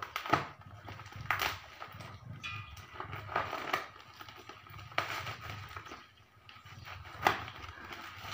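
Clear plastic parcel wrapping crinkling as it is pulled and torn open by hand, with a few sharp crackles.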